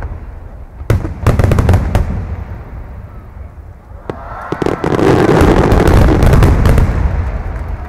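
Large 30 cm shakudama fireworks shells bursting overhead: sharp booms with rapid crackling about a second in, then a longer, louder swelling wash of sound from about halfway through.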